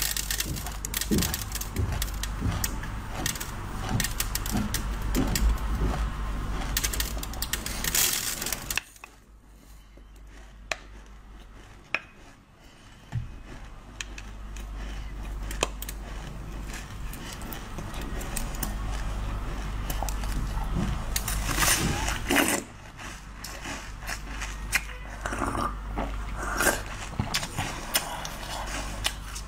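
Close-miked mouth sounds of eating basil-seed ice: for about the first nine seconds drinking a thick basil-seed drink straight from a bottle, then quieter chewing with a few sharp clicks. Near the end come sharp crunches of teeth biting into a block of ice studded with basil seeds.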